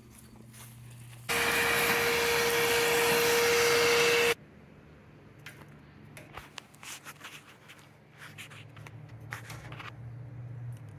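A loud, steady hiss with a steady tone in it starts abruptly about a second in and cuts off three seconds later. After it, a ribbed hose scrapes and knocks in the filler opening of a rusty steel fuel tank.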